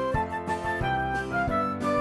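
Background music: a light melody on a flute-like instrument over a steady beat.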